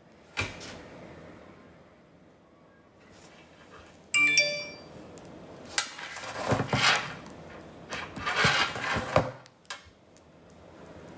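A short electronic chime of several steady tones rings about four seconds in. A few seconds of uneven rustling and handling noise follow it.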